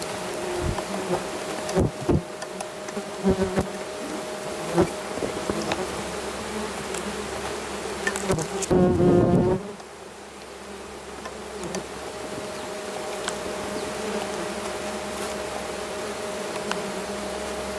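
Wasps buzzing in a steady hum around their nest, with a few knocks in the first few seconds. Just past the middle a louder, closer buzz lasts about a second.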